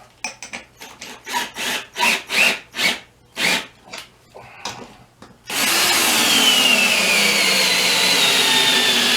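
A string of short clattering bursts, then a cordless drill runs continuously for about four seconds, driving the bead breaker's screw down. Its pitch sinks slowly as the screw takes up load against the tire bead.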